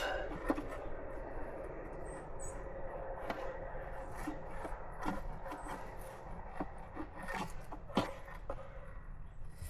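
Shallow creek water running steadily, with scattered light clicks and taps as a stick is worked through grass and twigs.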